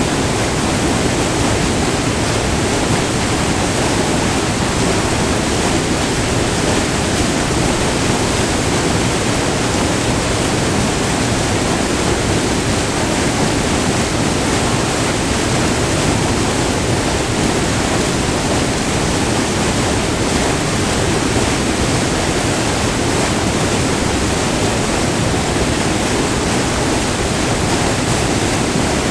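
Close-up sound of a small multi-tiered river waterfall: white water rushing over rock in a loud, steady roar without a break.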